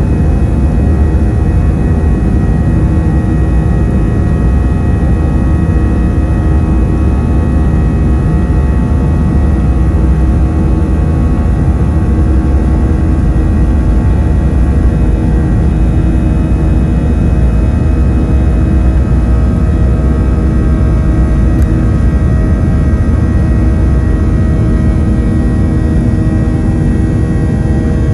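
Boeing 737-800's CFM56-7B turbofan engines running at a steady setting, heard inside the cabin by the wing: a heavy low rumble with several constant whining tones over it, no change in pitch or level.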